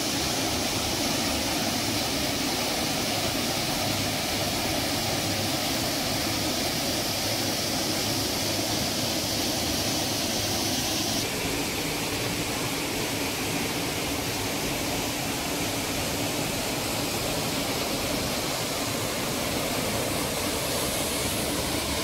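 Waterfall: a steady rush of falling water. About eleven seconds in, the upper hiss drops away abruptly and the rush carries on, a little duller.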